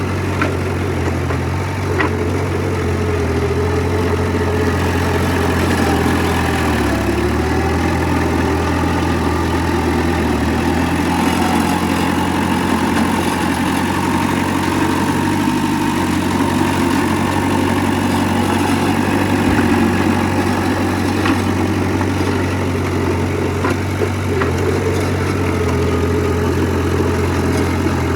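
Diesel engine of heavy earthmoving machinery, a bulldozer or dump truck, running steadily, with a few light clicks now and then.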